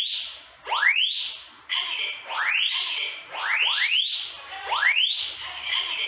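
Smoke-type detector of a specific small-facility automatic fire alarm system sounding its alarm after being set off with test smoke: a loud rising sweep tone repeated about once a second. The sweeps often come in overlapping pairs, as a second interlinked detector sounds along with it.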